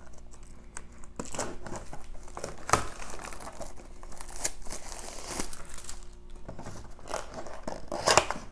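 Plastic shrink wrap crinkling and crackling in irregular bursts as it is peeled off a cardboard trading-card box, with a loud rip of the box's cardboard top tearing open near the end.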